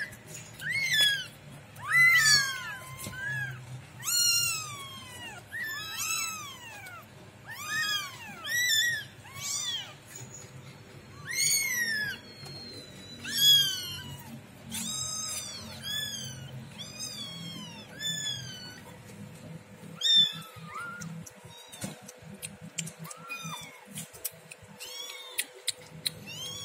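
Several young kittens meowing over and over, high cries that rise and fall in pitch, often overlapping, as they cry to be fed. The cries thin out and grow fainter about three quarters of the way through.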